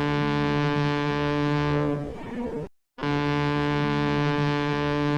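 A ship's horn sounding a long, steady, low note that stops about two seconds in. After a brief silence the same deep, rich tone sounds again and holds on.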